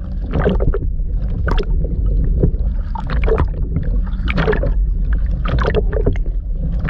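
Water splashing and washing against a windsurf board as it moves through the waves, in irregular surges over a steady low rumble.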